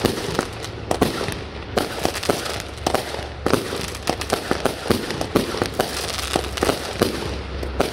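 Consumer 200-gram fireworks going off in quick succession: irregular sharp bangs, several a second, over a continuous crackle.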